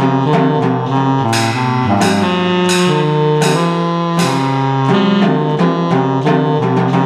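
Music from an arranger keyboard, a held melody line over changing chords, with a live snare drum and cymbal played along on sticks. Several ringing cymbal crashes come in the first half, and lighter hits keep the beat.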